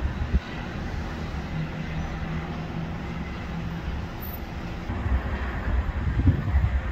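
Gusty wind buffeting the microphone over a low rumble of passing street traffic, with a steady engine hum for a couple of seconds early on; the gusts grow stronger about five seconds in.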